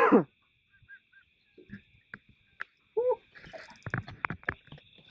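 Insects chirring steadily in two high bands, with a person's falling exclamation at the very start and a short call about three seconds in. A run of sharp clicks and knocks follows in the second half.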